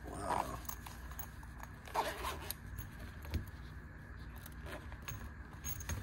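Zipper on a Viperade VE10 EDC pouch being run in a few short pulls, with the fabric pouch rubbing and scraping as it is handled.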